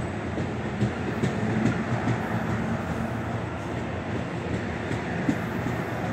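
MARC bilevel passenger coaches rolling past, a steady rumble of wheels on rail with a few light clicks.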